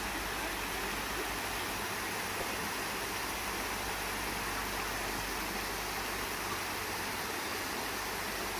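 Water pouring steadily over a low stone weir, a constant even rush.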